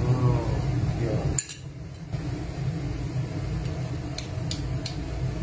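Kitchen utensils clinking lightly three times near the end, over a steady low hum.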